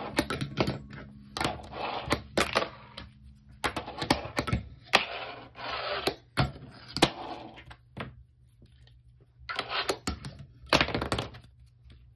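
Fingerboard wheels rolling on a wooden desktop, broken by sharp clicks and clacks of the board popping, landing and grinding on a steel bike rack rail, which gives no ringing ting. There is a pause of about two seconds after the middle before the rolling and clicks start again.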